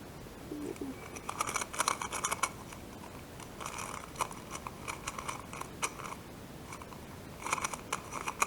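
QIYI 2x2 stickerless speedcube being turned fast in a solve: bursts of quick plastic clicks and clacks from the layers, in three runs with short pauses between.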